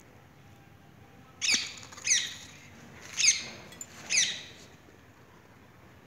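Rose-ringed parakeets giving four short, shrill calls, each falling in pitch, roughly a second apart.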